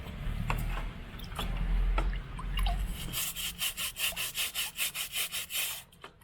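Stiff brush scrubbing a greasy air-conditioner filter screen in quick back-and-forth strokes, about four a second, starting about three seconds in after a few clicks and handling knocks.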